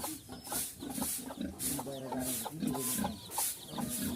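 Farm animals calling in a steady run of short, repeated calls, with a high hiss pulsing about twice a second.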